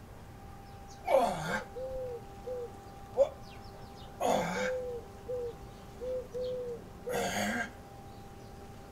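A man breathing out forcefully with each kettlebell snatch, three hard breaths about three seconds apart, each falling in pitch. Soft, short cooing notes repeat between the breaths, and a brief sharp sound comes about three seconds in.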